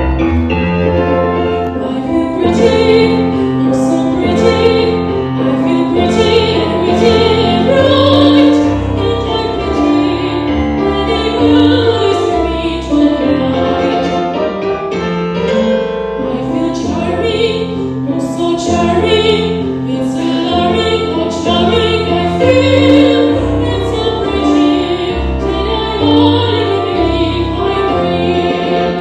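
A woman singing a melody of long held notes into a handheld microphone, accompanied by an electronic keyboard playing piano chords.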